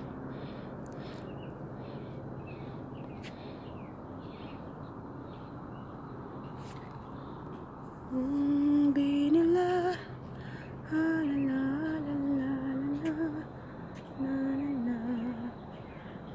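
A woman's voice carrying a slow, wordless tune under her breath, in several held phrases starting about halfway through. Before it there is only a steady low background hum with faint high chirps.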